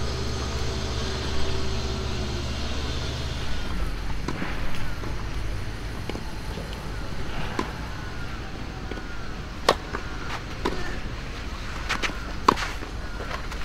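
Tennis ball struck by racket and bouncing on the court: scattered sharp pops, the two loudest about ten and twelve and a half seconds in. A steady low mechanical hum runs under the first few seconds and then stops.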